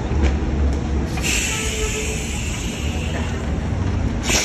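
A city transit bus idles with a low engine rumble. About a second in, a loud hiss of compressed air from the bus's pneumatic system starts and fades over a couple of seconds, and a second short hiss comes near the end.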